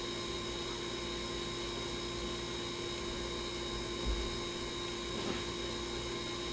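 Steady electrical hum and hiss of room tone, with a soft low thump about four seconds in.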